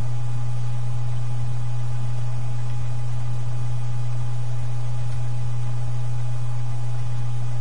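A loud, steady low hum with a faint higher whine, unchanging throughout.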